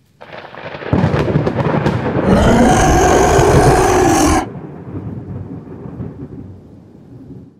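Thunder sound effect under a logo intro: a crash of thunder swells up about a second in, with a long, slightly wavering pitched howl laid over it from about two seconds in. Both cut off suddenly halfway through, leaving a fading rumble.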